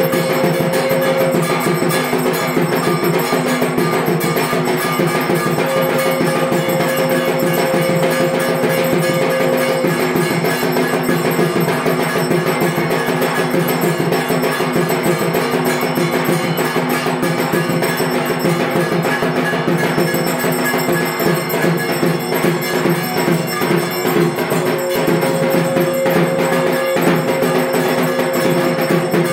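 Puja percussion: drums and clanging metal bells playing without pause. A long steady note sounds over it three times.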